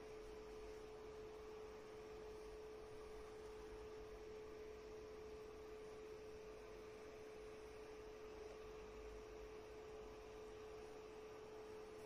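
Faint steady hum at one unchanging pitch, over low hiss.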